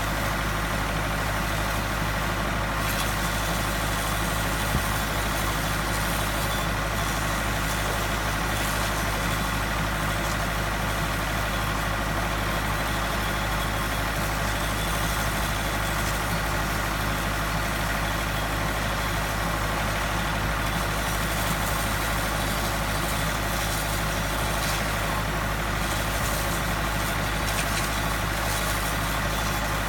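A steady, unchanging machine drone with a constant low hum, under an even hiss of water spraying from a high-pressure jet onto substation insulators.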